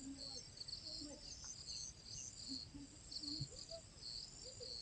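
Faint chorus of crickets chirping in short repeated pulses, with scattered faint low calls beneath.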